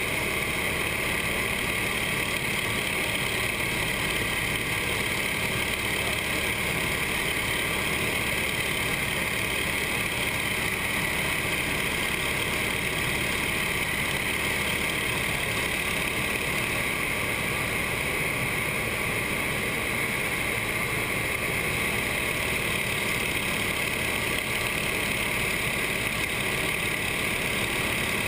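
Steady drone of a nine-cylinder radial engine and propeller in formation cruise, mixed with the rush of air over the canopy, heard from inside the cockpit of a CJ-6A or Yak-52 trainer.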